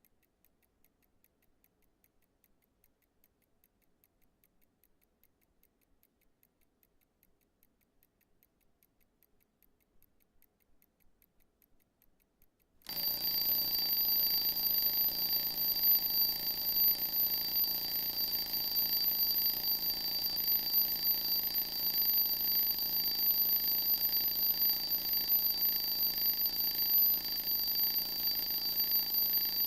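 Raketa Mini mechanical alarm clock ticking faintly. About thirteen seconds in, the alarm goes off suddenly and rings loudly and continuously with a shrill, high-pitched tone.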